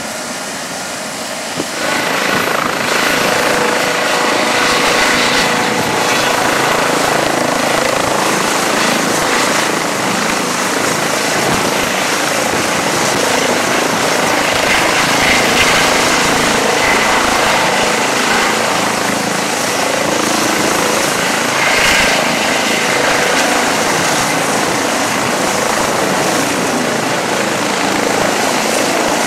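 Eurocopter EC135 helicopter taking off: its twin turboshaft engines and rotor run steadily, growing louder about two seconds in, as it lifts off the pad and hovers.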